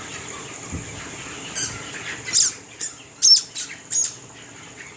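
Poultry birds at a farm squawking: about six short, shrill calls in quick succession, starting about a second and a half in, over a steady high-pitched hum.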